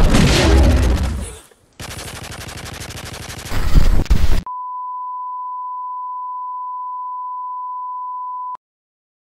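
Loud rumbling noise that cuts out after about a second and a half, then a buzzing burst of video-glitch static, then a steady high-pitched bars-and-tone test beep that stops abruptly with a click near the end.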